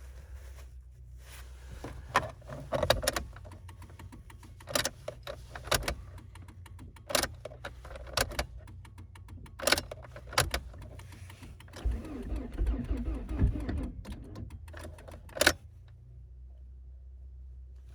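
Four-cylinder engine of a 1999 Volvo S40 1.8 running after a cold start at −1 °C, a steady low hum, with irregular sharp clicks and knocks on top and a rattling stretch about twelve seconds in.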